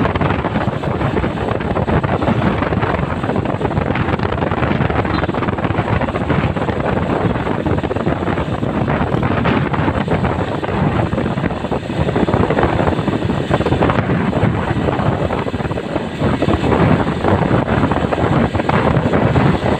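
Steady vehicle and road noise with heavy wind buffeting the microphone, as from riding along at speed.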